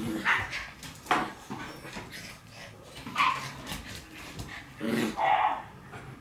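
Shiba Inu puppies barking and yipping in play: several short barks spread over the stretch, the loudest and longest about five seconds in.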